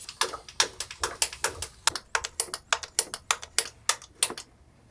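Rapid, slightly uneven clicking, about six clicks a second, from a hand fuel priming pump on a 230 hp Mercedes marine diesel being worked to bleed air out of the fuel system before starting. The clicking stops near the end.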